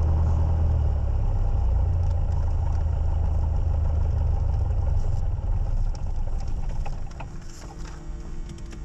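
Single-engine light aircraft's piston engine idling on the ground, heard from inside the cockpit as a steady low drone. It fades over the last few seconds as music comes in.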